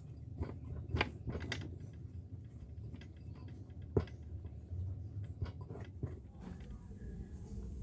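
Hands kneading sticky noodle dough in a glass bowl: soft pressing and squishing with scattered sharp clicks and knocks of hands against the glass, the sharpest about a second in and again at about four seconds.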